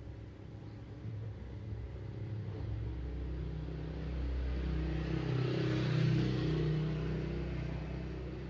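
A vehicle passing close by: a low engine rumble and rushing noise build up, peak about six seconds in, then fade.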